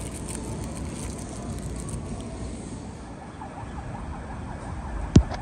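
Steady low vehicle rumble, with a faint wavering tone rising and falling in the second half and a single sharp thump near the end.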